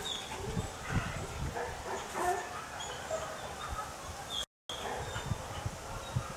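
Kelpie-mix dog making soft whimpers and small yips, over low handling rumble; the sound drops out briefly a little past two-thirds through.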